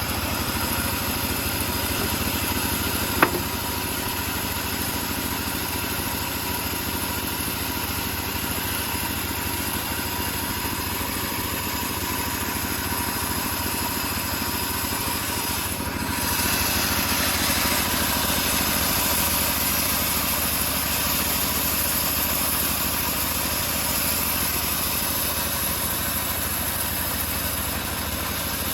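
Engine of a homemade bandsaw sawmill running steadily, with one sharp click about three seconds in; about halfway through the sound gets a little louder and brighter and stays so.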